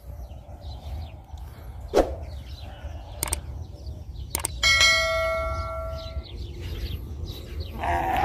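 A single sharp metal clang about halfway through, ringing on for about a second and a half, after a few lighter knocks. A bleat begins near the end, over a steady low rumble.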